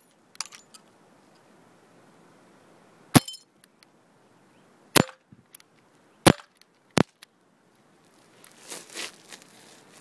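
Airsoft sniper rifle BBs cracking into a glass jam jar: about five sharp, separate hits spread over the first seven seconds, some with a short glassy ring as pieces break off. Near the end comes a stretch of irregular rustling noise.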